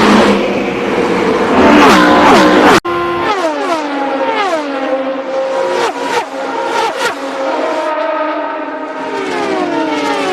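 Open-wheel IndyCar-series race cars at full throttle passing by. A loud, dense engine sound for about the first three seconds cuts off abruptly, then a string of cars goes past one after another, each engine note falling in pitch as it passes.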